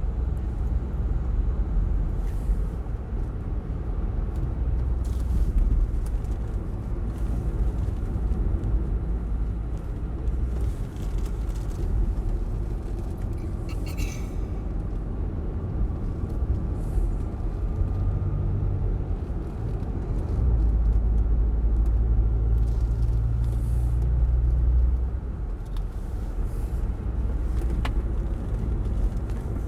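Car cabin road noise while driving: a steady low rumble of engine and tyres, swelling for a few seconds about two-thirds of the way through, with a brief click around the middle.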